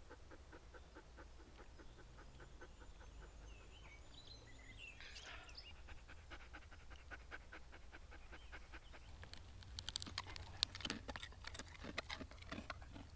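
Akita Inu dog panting, a faint quick rhythm of about three to four breaths a second, with a few sharper clicks and rustles in the last few seconds.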